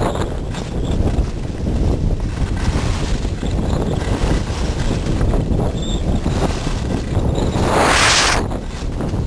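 Wind buffeting the microphone of a skier's camera during a fast downhill run, with a low rumble throughout as the skis run over packed snow. About eight seconds in comes a louder hiss of about a second as the skis scrape the snow through a turn.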